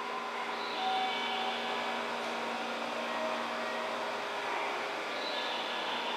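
Steady mechanical hum of station equipment, holding several even tones, with a faint higher whine that comes in about a second in and again near the end.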